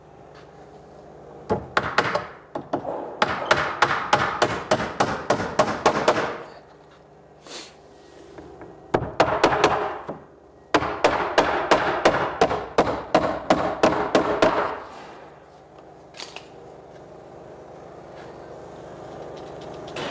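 Hammer striking tongue-and-groove pine boarding in three runs of quick blows, about four or five a second, nailing a board into place.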